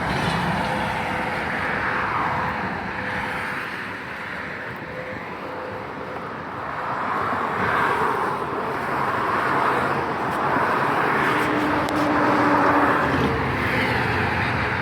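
Interstate highway traffic: a continuous rush of vehicles going by, swelling louder several times as individual vehicles pass.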